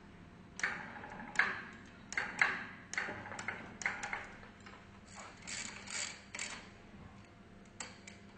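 Hand tools clicking and clinking on metal as bolts are fastened during pump reassembly: a string of sharp clicks about twice a second, fading to softer ones, with one more click near the end.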